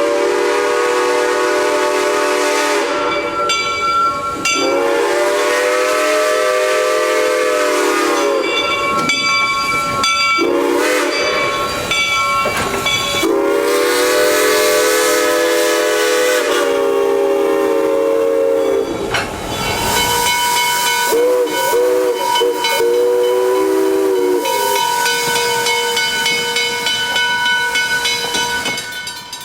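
A Southern Pacific 6-chime steam whistle on a steam locomotive sounds several long chord blasts. About two-thirds of the way in, a Lunkenheimer 3-chime steam whistle follows with a run of short, higher toots. Steam hisses between the blasts.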